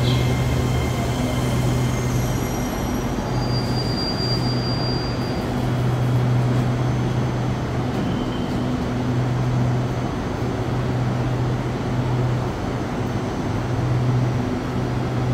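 Train running on the rails: a continuous rumble with a low hum that swells and fades.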